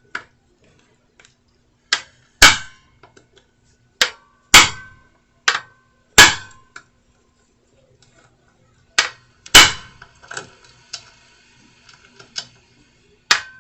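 Hammer striking a manual impact screwdriver to work loose a seized flat-head drain bolt on a Johnson 25 HP outboard gearcase. The blows come in pairs, a light tap then a hard strike about half a second later, four times, each hard strike sharp with a short metallic ring.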